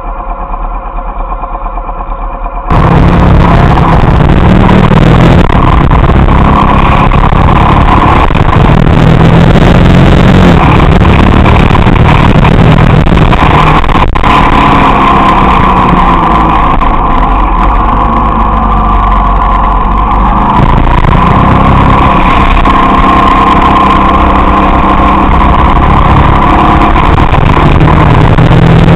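Motorcycle engine running on the move, its note rising and falling as it is ridden through bends, under loud wind and road noise on a bike-mounted camera's microphone. The loud sound cuts in suddenly about three seconds in, after a quieter steady hum.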